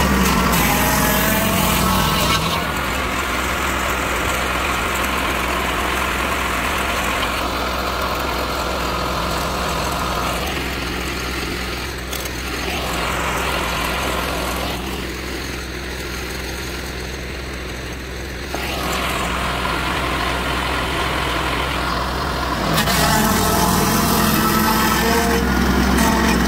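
Lucas portable swing-blade sawmill running on its petrol engine while milling a log into posts. It is louder for the first couple of seconds and again near the end, and eases off in the middle.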